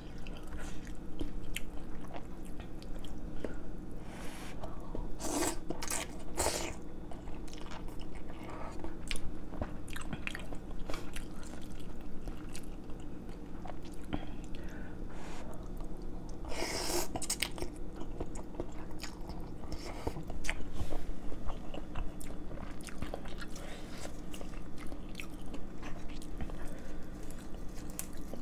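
Close-up eating sounds: chewing and biting on noodles and braised chicken, with a few loud noodle slurps, two short ones about five and six and a half seconds in and a longer one around seventeen seconds. A steady low hum runs underneath.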